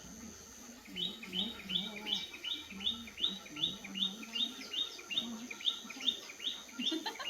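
A small bird chirping over and over, short, even chirps about three a second, beginning about a second in.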